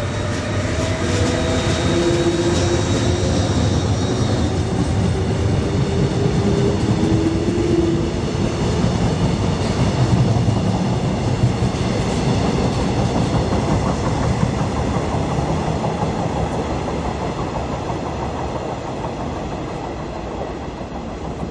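Train passing close beneath, a steady rumble of wheels on the track with a whine of several held tones during the first several seconds. It grows loudest about halfway through, then slowly fades as the train moves away.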